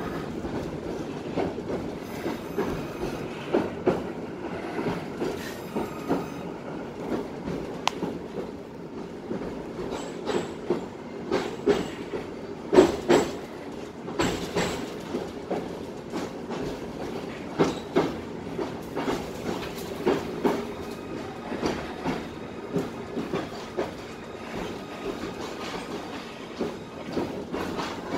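Tatra-Yug K1M8 articulated tram running along the line, heard from inside the passenger car: a steady rumble of wheels and running gear with frequent irregular knocks and rattles, the loudest cluster about halfway through.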